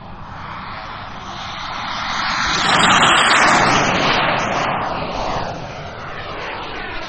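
Radio-controlled model BAE Hawk jet making a low, fast pass: its jet noise, a broad rushing sound, swells to a peak about three seconds in and then fades as it climbs away.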